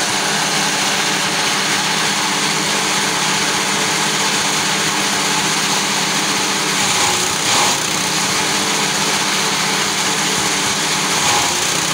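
Small stationary petrol engine running a forage chopper at a steady speed, with the cutter's constant whirring rush over the engine note. Twice, about seven and eleven seconds in, it briefly grows louder as corn stalks go into the chopper.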